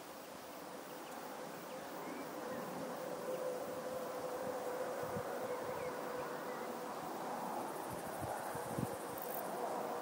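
Flying insect buzzing with a steady hum, with a few faint bird chirps and occasional low bumps of wind on the microphone.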